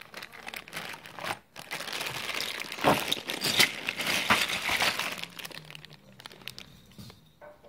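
Clear zip-lock plastic bag full of small plastic Playmobil parts crinkling as it is handled, the loose pieces shifting inside. The crinkling is loudest in the middle and fades out near the end.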